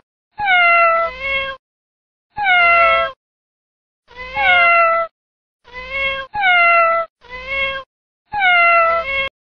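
Cat meows played over and over, about seven calls each falling in pitch, with dead silence between them.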